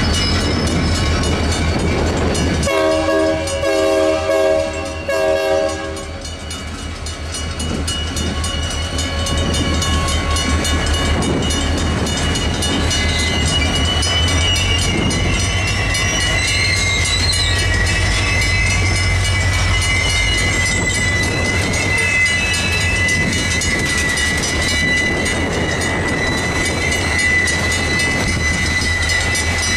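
Freight train passing over a road grade crossing: diesel locomotives rumbling by, with a locomotive horn chord sounding for about three seconds a few seconds in. Freight cars then clatter over the crossing with a wavering high wheel squeal, while the crossing bell keeps ringing.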